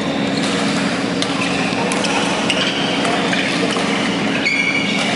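Badminton rally on an indoor court: scattered sharp racket hits on the shuttlecock and a high shoe squeak on the court floor about four and a half seconds in, over a steady low hum.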